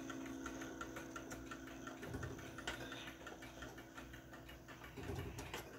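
1880s Ansonia mantel clock's movement giving a run of light, quick metal clicks as it is worked by hand at the dial.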